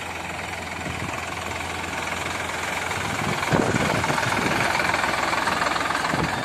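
Solis 4WD tractor's diesel engine running at low speed as the tractor drives a tight turn, getting louder and loudest from about halfway through as it passes close by.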